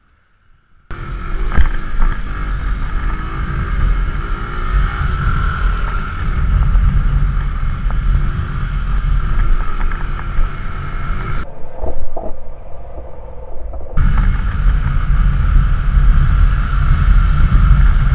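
Wind rushing over the microphone together with a Bajaj Boxer CT 100 motorcycle's small single-cylinder engine running under way. It starts suddenly about a second in, drops abruptly to a quieter stretch for a couple of seconds past the middle, then comes back just as loud.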